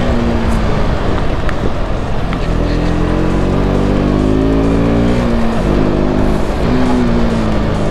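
KTM RC 200's single-cylinder engine revving up and dropping back several times as the motorcycle accelerates and slows on a winding road, over a steady rush of wind noise.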